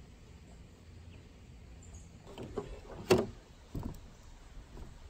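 Handling knocks: a few light knocks, then one sharp, loud knock a little past halfway and a duller knock under a second later.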